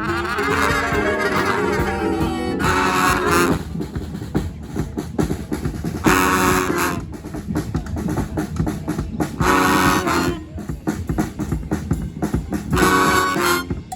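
Street brass band playing live with drums. A held brass chord opens, then drum beats carry on between short, loud brass hits about every three seconds.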